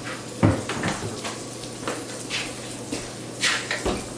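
Butter melting with a faint sizzle in a hot stainless pot, over a steady low hum. A few short knocks break in, the loudest about half a second in and two more near the end.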